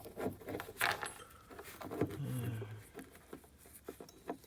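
Light metallic clicks and rattles of small parts being handled as a spring is pushed into the hole of an ATV kickstarter shaft. A short low hum from a person a little past two seconds in.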